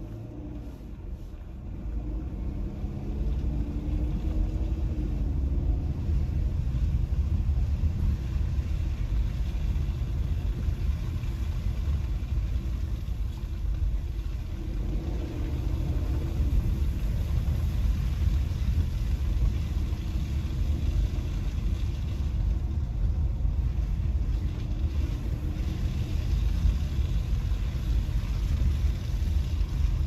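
Car driving on a wet, slushy road, heard from inside the cabin: a steady low rumble of engine and tyre noise that builds over the first couple of seconds as it gets going. The engine note glides up and down briefly a couple of times.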